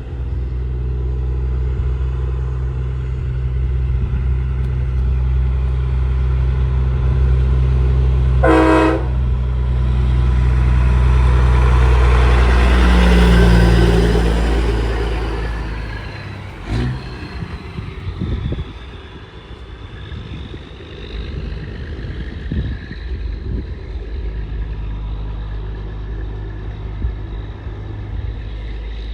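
Heavy diesel semi truck running loudly and passing close by, with one short air-horn toot about nine seconds in. After about sixteen seconds the engine fades into quieter passing traffic.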